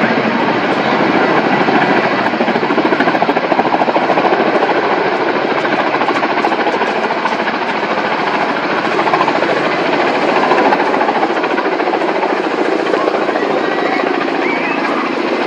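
Coaxial-rotor helicopter hovering and climbing with a loaded water bucket slung beneath. Its rotors give a steady, fast chop, with the turbine engines running under it.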